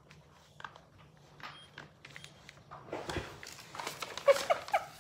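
A Labrador puppy scrabbling in a fabric storage box that tips over on a digital scale. Rustling and bumping start about three seconds in, with a few short high cries near the end.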